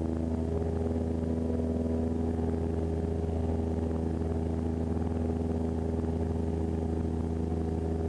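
Cessna 172S's four-cylinder Lycoming IO-360 engine and propeller running steadily in flight, heard inside the cockpit as an even, unchanging drone.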